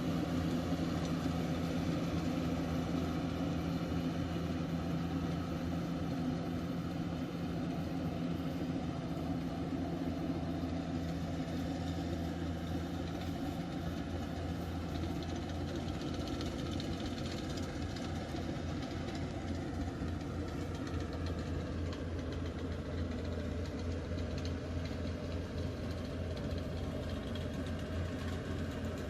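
Engine of a rice harvesting machine running steadily.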